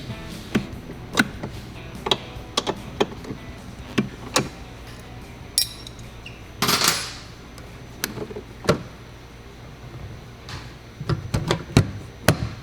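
Scattered sharp clicks and knocks of hand tools and metal hardware being handled, with a short hiss about seven seconds in.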